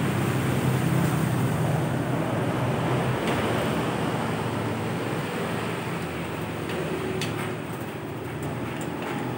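Steady low mechanical rumble of workshop background noise, with a few light metallic clicks of a hand tool working on a motorcycle engine's crankcase, most of them in the last third.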